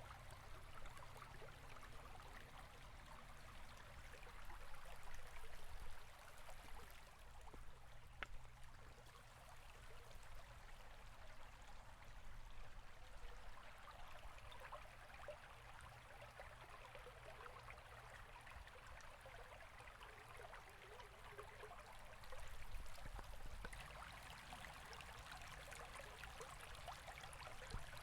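A river flowing steadily: faint, even rushing and trickling water, swelling slightly twice.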